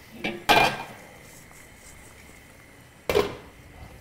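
Metal pots, pans and utensils knocking and clanking on a gas stovetop: two sharp clanks about half a second in, the second the loudest, and another about three seconds in.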